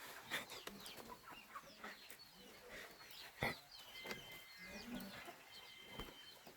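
Chickens clucking softly, with many short high-pitched peeps of chicks throughout.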